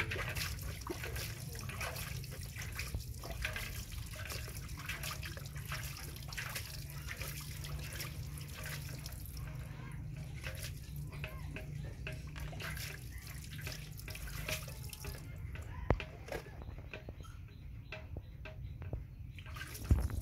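Hand-scooped water splashing and dripping as a young macaque is washed from a metal basin. Small irregular splashes continue throughout over a steady low hum, with a sharp knock about 16 seconds in.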